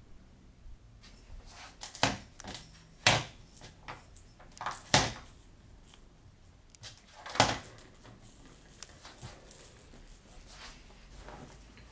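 Plastic ball-track cat toy clattering as a cat bats the ball around its track: four loud clacks a second or two apart, with lighter rattling and ticking between and after them.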